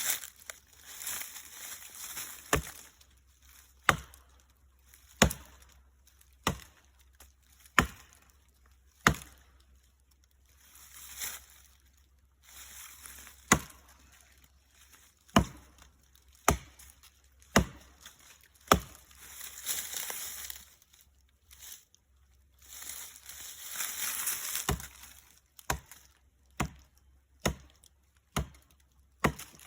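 An axe chopping into a standing tree trunk: sharp, regular strokes about one every second and a quarter, in runs broken by two short pauses with rustling in between.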